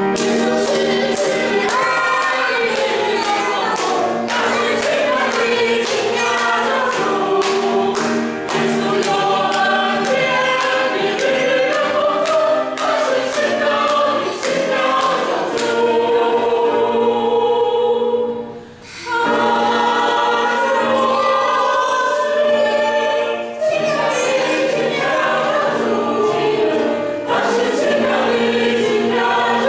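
Mixed church choir of adults and children singing a hymn together, with a short pause between phrases a little past the middle.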